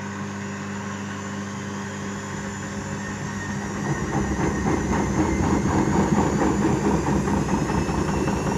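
Arçelik washing machine in its spin cycle: a steady motor hum, then about four seconds in it gets louder with a dense, rapid rattling as the drum speeds up and the machine shakes hard.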